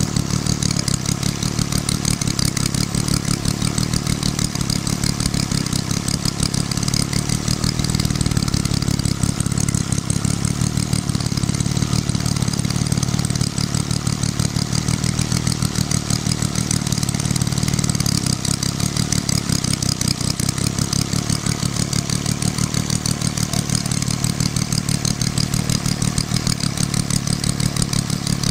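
Home-built three-cylinder four-stroke model ship-diesel engine running with a rapid, even beat.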